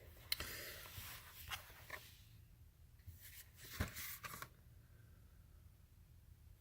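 Plastic Blu-ray case being handled and opened: quiet scratchy rustling with a sharp click about a third of a second in and another just before four seconds.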